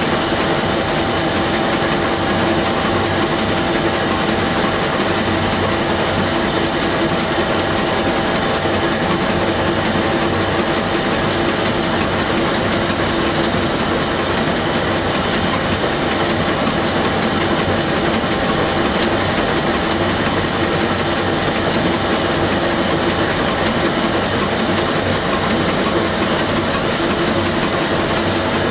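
Werkspoor 2100 hp four-stroke marine diesel engine running steadily, heard up close at its cylinder heads, where the rocker arms and valve springs are working. The sound is loud, dense and even, with a constant hum beneath.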